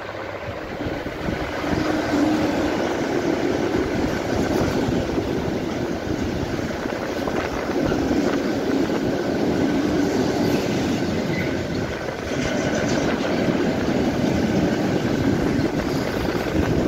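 Freight train of tank wagons hauled by an electric locomotive passing close by: a steady rumble of wheels on rails that grows louder about two seconds in and stays loud as the wagons roll past.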